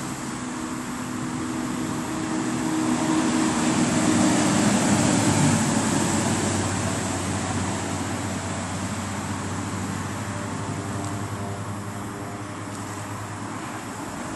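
Road traffic: a vehicle goes by, growing louder to a peak about four to six seconds in and then slowly fading, over a continuous low traffic hum.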